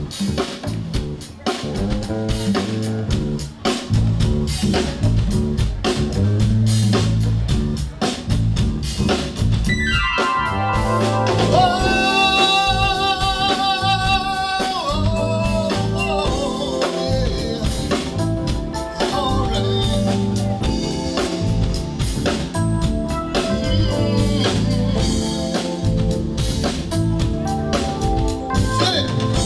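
Live band playing an instrumental groove with drum kit and bass. About ten seconds in, a note slides into place and is held, wavering, for several seconds over the beat.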